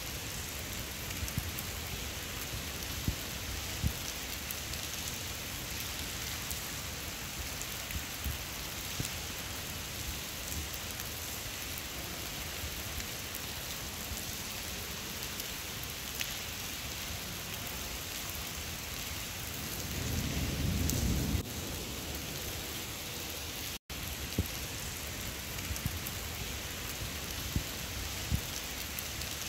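Steady rain falling, with a few drips ticking, and a low rumble of thunder lasting a second or two about twenty seconds in. The sound drops out for an instant a few seconds later.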